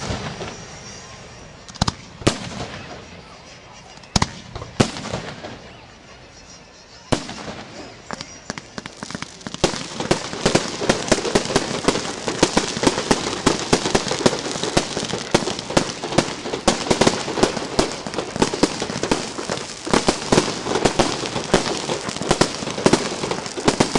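Fireworks display: a few separate loud shell bursts, spaced a second or two apart, then from about ten seconds in a dense, continuous run of rapid bangs and crackling as many shells go off together.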